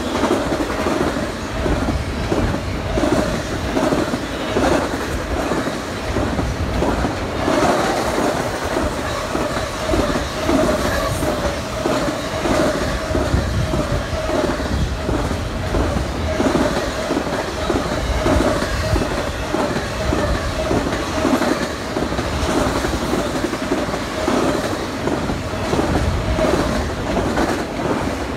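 Intermodal freight train of container well cars and trailer flatcars passing close by, its wheels clicking in a quick, steady rhythm over the rail joints above a continuous rumble. A steady high ringing tone runs through the passing.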